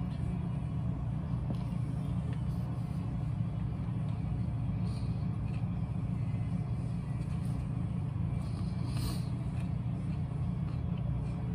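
A steady low mechanical hum, with a few faint wet mouth noises of someone chewing food, about halfway through and again toward the end.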